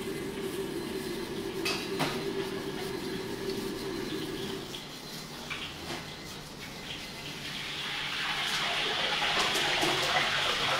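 Raw whole chickens being turned and rubbed with marinade in a stainless steel bowl by gloved hands, making wet sloshing and squelching. A steady low hum runs through the first half, and the wet hiss grows louder from about eight seconds in.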